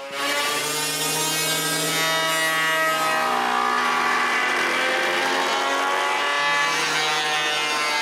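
Woodworking jointer running as maple boards are pushed across its cutterhead to surface them: a steady motor pitch, with the sound shifting about three seconds in.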